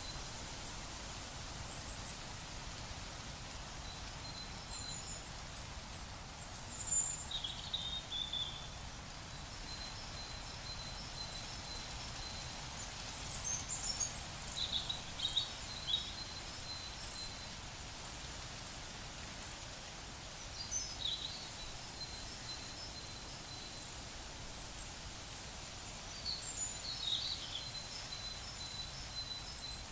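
Outdoor ambience of birds chirping in several short flurries, with a thin high trill repeating now and then, over a steady bed of background noise.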